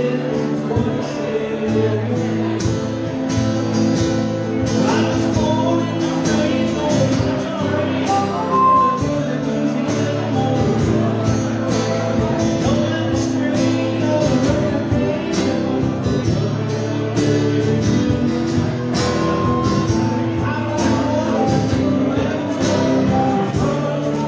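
Small live acoustic band playing: strummed acoustic guitars with harmonica notes over a steady beat slapped on a cajón.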